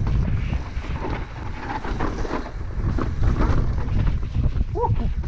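Wind buffeting the microphone of a camera mounted on a downhill mountain bike rider, over the clatter and rattle of the bike running down a rocky trail. There is a short pitched note near the end.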